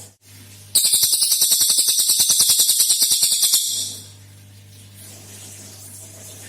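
Cililin song-bird delivering a loud, rapid trill of evenly repeated high notes (a 'tembakan' burst), starting under a second in and stopping after about three seconds. A faint steady low hum runs underneath.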